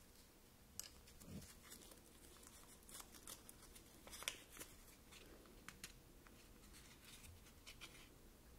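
Faint crinkling and crackling of a tiny paper bag being unrolled and opened, with scattered light clicks and taps of small utensils being set down.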